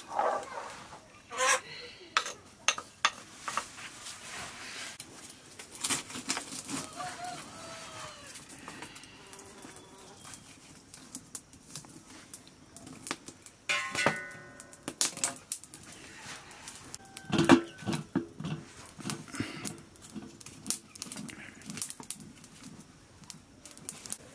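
Scattered knocks and clatters of cooking over a wood fire: a metal ladle and a blackened cooking pot being handled, with one louder knock about three quarters of the way through. Voices can be heard in the background.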